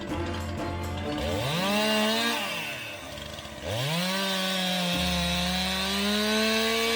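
Chainsaw engine revved up and let back down to idle, then revved again and held at high speed.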